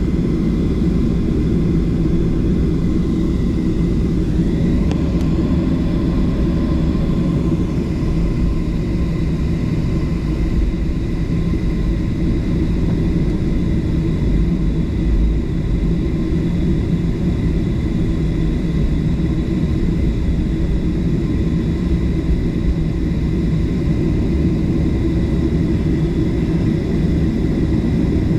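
Jet airliner engines running, heard inside the passenger cabin: a steady loud rumble with a thin whine above it.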